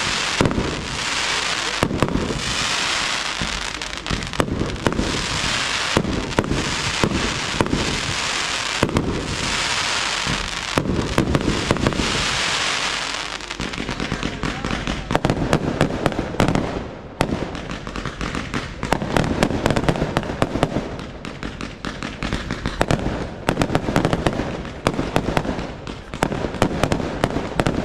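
Aerial fireworks display firing in quick succession: a steady hiss laced with sharp bangs for about the first half, then dense rapid crackling and popping.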